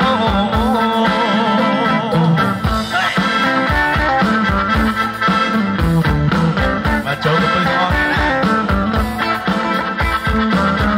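Live dance band playing loudly through a PA system: a steady drum beat under electric guitar and keyboard, with a wavering melody line near the start.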